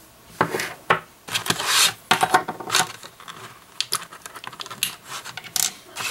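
Clear plastic blister tray crinkling while small plastic and metal spinning-top parts are pulled from it, with a string of sharp clicks as the pieces are handled and set down on a wooden table.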